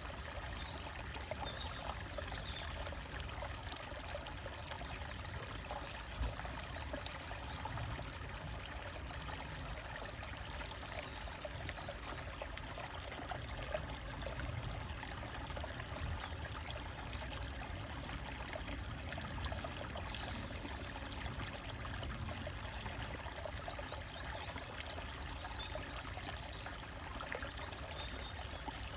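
Small stream trickling and gurgling over rocks in a steady, unbroken flow. A few brief, high bird chirps come through faintly now and then.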